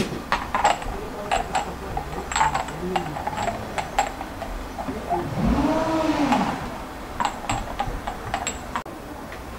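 A porcelain teapot and its lid clinking and knocking as the lid is fitted and the pot is set onto a metal samovar. The result is a scatter of short, sharp clinks, in bunches early on and again near the end.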